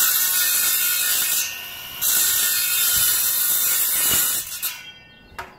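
Compact circular saw at full speed, notching the top of a 1¼-inch PVC pipe. There are two cuts, the first about a second and a half and the second about two and a half seconds, with a brief pause between them as the motor keeps whining. The blade winds down near the end.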